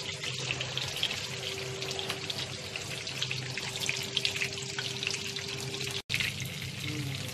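Flour-coated chicken pieces frying in hot oil: a steady crackling sizzle with a low hum beneath it. The sound cuts out completely for a split second about six seconds in.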